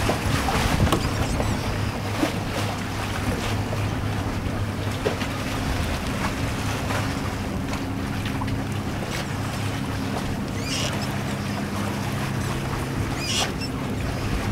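Wind buffeting the microphone and choppy water rushing and splashing along a sailboat's hull, with scattered splashes and a steady low hum underneath.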